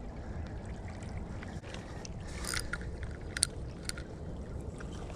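Steady low rush of creek water flowing over the stream bed, with a few short sharp clicks in the middle.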